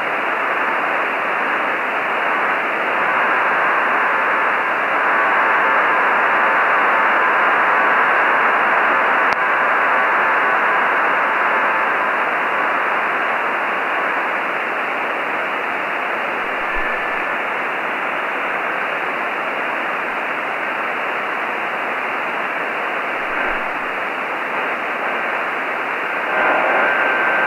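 Radio receiver hiss from a ham transceiver tuned to the HuskySat-1 satellite's downlink, cut off above about 3 kHz, with the satellite's faint telemetry signal showing as weak steady tones in the noise, strongest in the first half.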